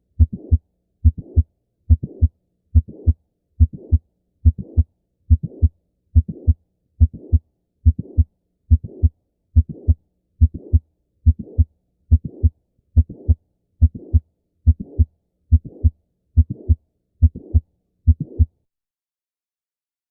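Recorded heart sounds heard through a stethoscope: a steady beat at about 70 a minute, each beat two close low thumps with a short rough sound between them, stopping about eighteen seconds in.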